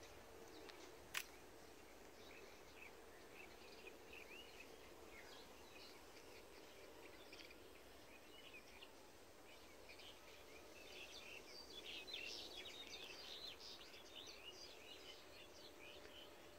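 Faint rural ambience with many small birds chirping, growing busier about eleven to fourteen seconds in. A single sharp click about a second in.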